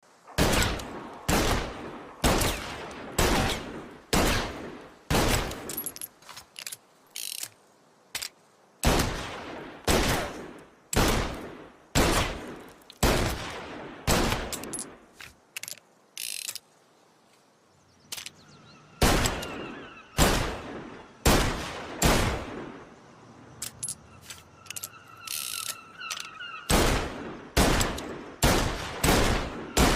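Magnum revolver shots fired in strings of several, about one a second, each a sharp crack with a fading tail. Lighter mechanical clicks and rattles come between the strings.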